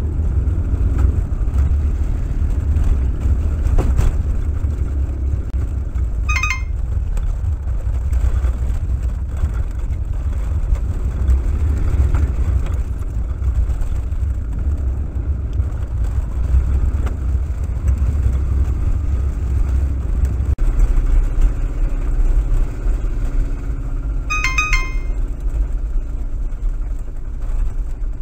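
Small three-wheeled utilicon utility vehicle on the move, its engine and drivetrain rumbling steadily, heard from inside the cab. The rumble deepens about two-thirds of the way through. Twice a brief high-pitched squeal cuts in, the two some eighteen seconds apart.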